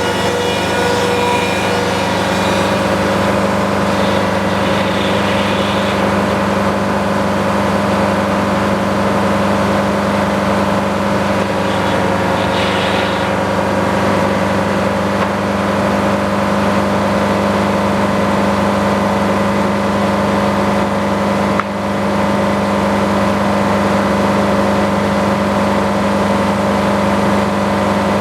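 Sawmill engine running steadily under load, with a brief dip in loudness about three quarters of the way through.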